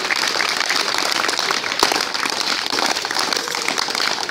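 Crowd applauding: a dense, steady run of hand claps.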